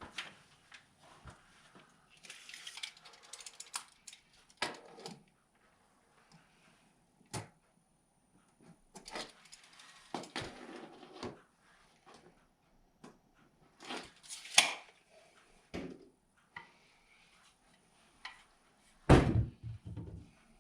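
Hands-on installation work: scattered knocks, clicks, clatter and scraping of tools and parts being handled, with a heavy thump about nineteen seconds in.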